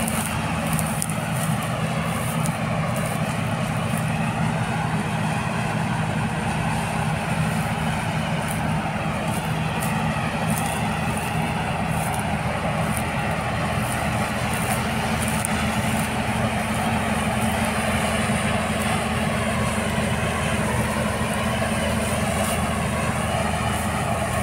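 New Holland TC5070 combine harvester running at a steady pitch as it cuts barley: an even diesel drone that does not rise or fall.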